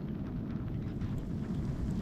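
Wind buffeting the microphone in a snow storm, a steady low rumble.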